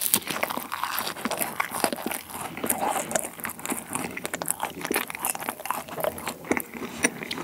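Close-miked biting and chewing of a flaky cream-filled puff pastry: a sharp crunch at the start, then a dense run of crisp crackles as the layers break up under chewing.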